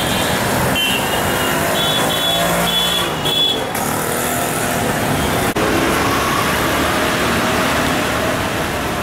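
City street traffic: a continuous wash of passing motor vehicles, with a few short high tones in the first few seconds.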